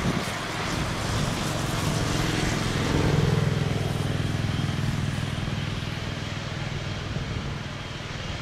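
Boeing 777 twin jet engines at taxi power as the airliner rolls past. A steady low drone carries a faint high whine, loudest about three seconds in, then slowly fading.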